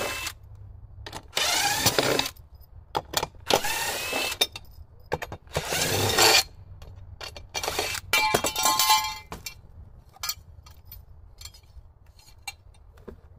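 Cordless drill-driver backing screws out of a metal mounting plate in several short runs, its motor whining up in pitch each time. About eight seconds in there is a brief metallic clinking rattle, then only a few small clicks.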